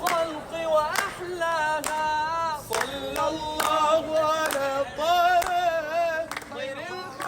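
A voice singing a melismatic melody, holding long notes that waver and bend in ornaments, with several sharp clicks or claps between phrases.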